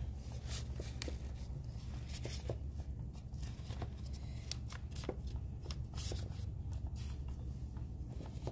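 Irregular soft clicks and rustles of a gloved hand arranging chocolate-dipped strawberries in a box, over a steady low hum.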